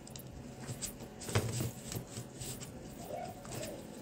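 Small metal spoon scraping and clicking lightly against a small plastic cup while stirring glow powder into UV resin, with one brief low knock about a second and a half in.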